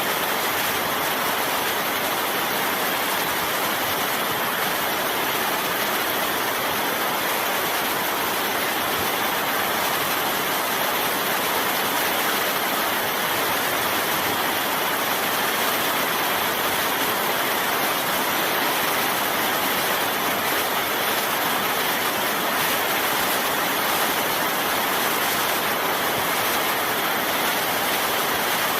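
Heavy rain falling steadily, a dense, even hiss of rain with no breaks or distinct drops standing out.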